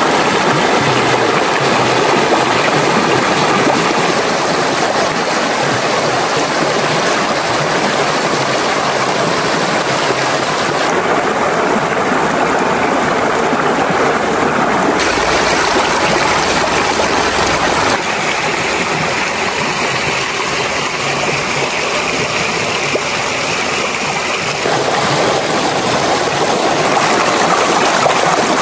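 Shallow rocky stream rushing and splashing over stones, recorded close, as a loud, steady roar of water. Its tone shifts abruptly a few times.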